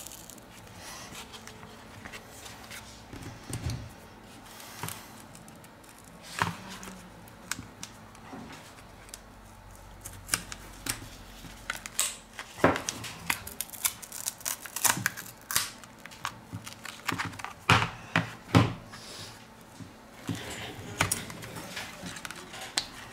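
Irregular sharp clicks and taps of a Xiaomi Redmi 7's plastic back cover and frame being handled as the cover comes free. The clicks come thickest in the second half.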